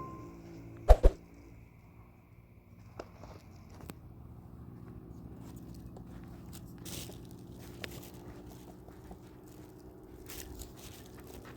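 A sharp thump about a second in, then faint scattered clicks and rustling over a low steady hum.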